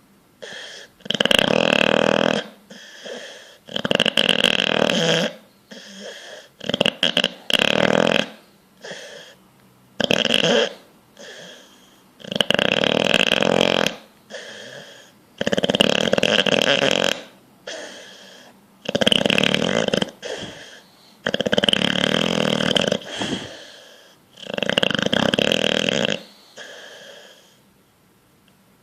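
Bulldog snoring in deep sleep: loud snores about every two to three seconds, with shorter, softer sounds in between.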